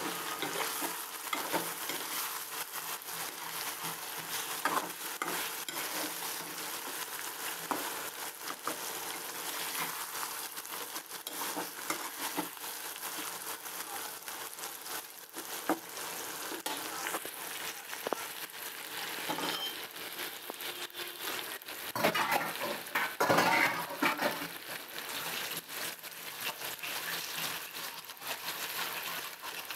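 Potato pieces frying in oil and spice paste in a kadai, sizzling steadily, while a metal spatula scrapes and knocks against the pan as they are stirred. The stirring gets louder and busier for a couple of seconds a little over two-thirds through.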